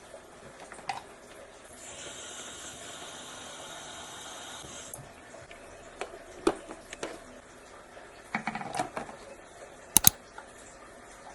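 Scattered light clicks and taps of small objects being handled, with a steady whirring noise from about two to five seconds in and two sharp clicks near the end.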